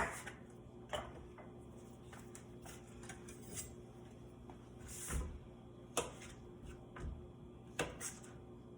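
Kitchen cookware and utensils being handled: a sharp clack at the start, then a handful of lighter, separate knocks and clinks.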